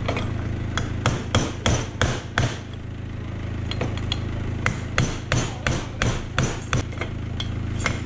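Ball-peen hammer striking a pin punch to drive out the dowels holding an aluminium piece of a 1UZ-FE hydraulic fan pump in a vise: a run of about six sharp metallic taps, a pause of about a second and a half, then about ten more at roughly three a second.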